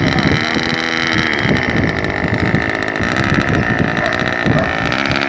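Radio-controlled model airplane motors and propellers running in flight, with a steady high whine and a lower drone whose pitch repeatedly rises and falls.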